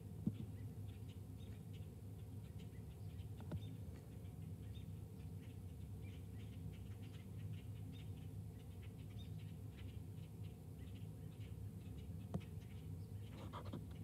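Small bird pecking and cracking black sunflower seeds in a window-mounted feeder: a scatter of faint, quick clicks and taps, with a few louder taps, over a steady low hum.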